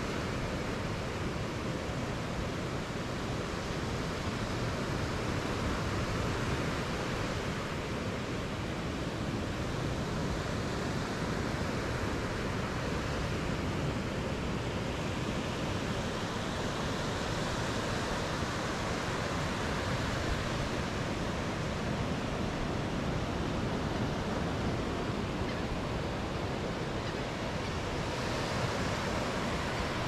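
Steady wash of surf breaking along a sandy beach, mixed with the rumble of wind on the microphone.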